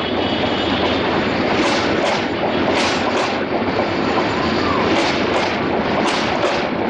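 Passenger train coaches rolling along the track: a steady rumble with sharp clacks and squeals from the wheels at irregular intervals, about one or two a second.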